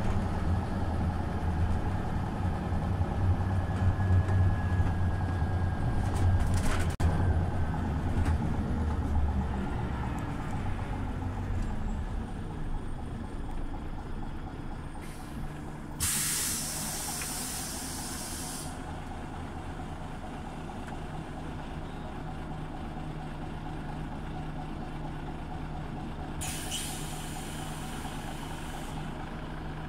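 Scania OmniLink CL94UB city bus engine running with a low drone that dies down over the first ten seconds or so as the bus slows, then settles to a faint steady idle. Two loud bursts of compressed-air hiss, each two to three seconds long, come about 16 seconds in and again near the end: the bus's pneumatic system venting.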